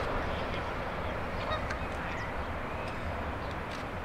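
Waterfowl honking now and then over a steady low rumble and hiss.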